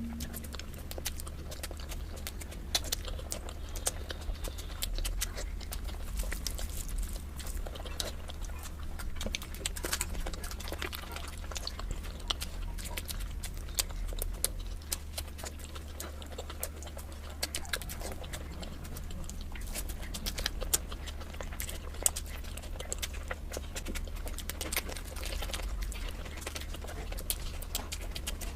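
Close-miked eating sounds: chewing, with many irregular small clicks, over a steady low hum.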